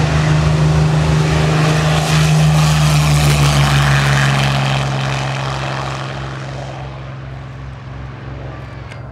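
Hawker Hurricane's piston engine at full take-off power, a steady propeller-driven drone that is loudest a few seconds in and then fades as the fighter climbs away.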